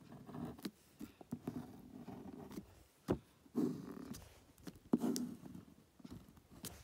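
Ballpoint pen drawing lines on paper over a hard board: a series of short scratching strokes, with a few sharp knocks in between.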